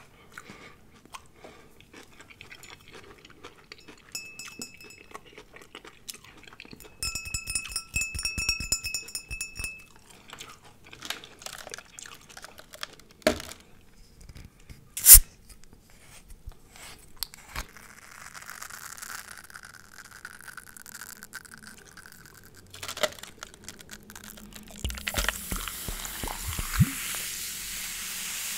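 A glass bottle of carbonated Clearly Canadian drink is handled and twisted open with one sharp click about halfway through. Near the end it is poured over ice into a cup: a fizzing hiss with a short rise in pitch as the cup fills.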